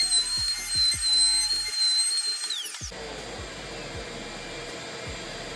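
Background music with a steady electronic beat, which drops away about three seconds in. It gives way to the steady whine of a table-mounted router running a flush-trim bit as a board is fed along it.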